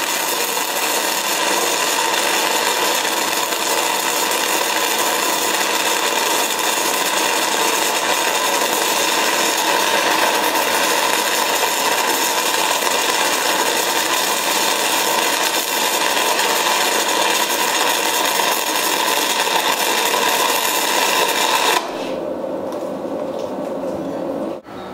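Stick (SMAW) welding arc crackling steadily as an electrode burns along the plate, then breaking off suddenly about 22 seconds in, leaving a quieter background.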